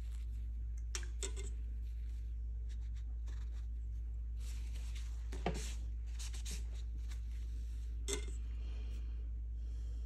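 Paintbrush rubbing and stroking on watercolour paper, with a few small taps and knocks, the sharpest about halfway through, over a steady low electrical hum.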